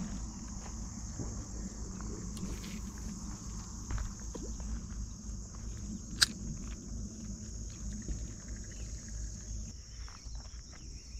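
Steady high-pitched chorus of insects over a low rumble, with one sharp click about six seconds in.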